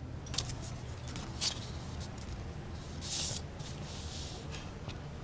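Paper rustling and crackling as a folded card is opened and handled: a few short crinkles, then a longer rustle about three seconds in, over a low steady room hum.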